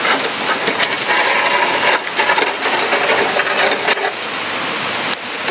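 Metal clatter and scraping as a wire grill grate is lifted off a burning log-candle stove, with a few short knocks and some brief metallic ringing. A steady rush of a nearby stream runs underneath.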